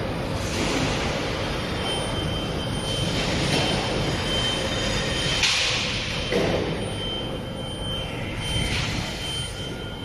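Steady running noise of an automated gantry sorting system and factory machinery handling laser-cut sheet metal, with a faint high whine. Short hissing bursts come several times, the strongest about five and a half seconds in, and a thump follows about a second later.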